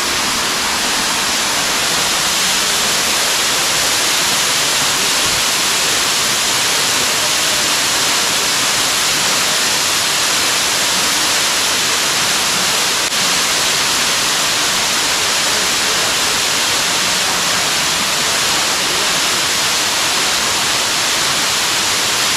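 Waterfall plunging down a narrow rock cleft, heard close: a loud, steady rush of falling water and spray.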